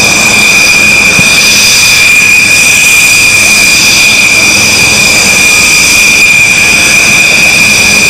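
Military jet engine whining steadily as the jet taxis: one loud, unchanging high-pitched tone.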